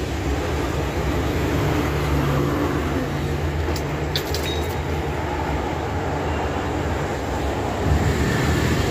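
A steady low rumble, with a few faint light clicks about four seconds in.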